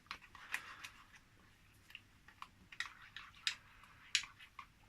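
A utensil stirring lemon juice into yogurt in a bowl: light, irregular clicks and scrapes against the bowl, about a dozen over a few seconds.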